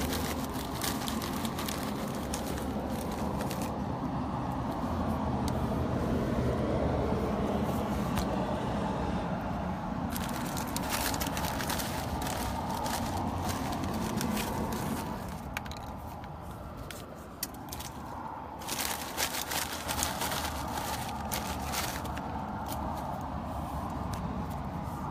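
A plastic snack packet crinkling and rustling in the hand, with scattered sharp clicks and crackles of handling, over a steady low rumble.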